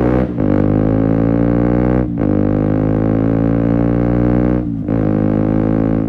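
KTM Duke 125's single-cylinder engine, through an Akrapovic silencer with a de-cat link pipe, accelerating hard through the gears. The pitch climbs steadily in each gear and dips briefly at three upshifts, about a third of a second, two seconds and nearly five seconds in.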